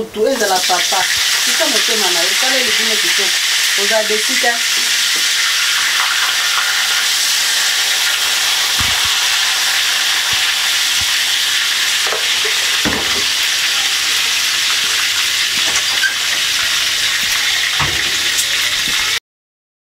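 Food frying in hot oil in a pan: a steady sizzle, with a few dull knocks along the way. It cuts off abruptly just before the end.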